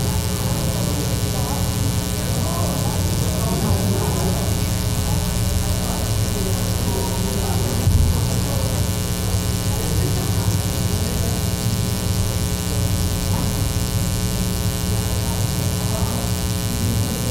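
Steady electrical mains hum and buzz, with faint, indistinct conversation among several people beneath it.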